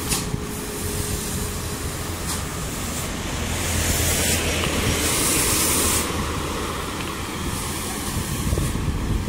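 A dump truck overtaking at close range on a concrete road: its diesel engine and tyres grow loudest about four to six seconds in, over a steady hiss of road and wind noise.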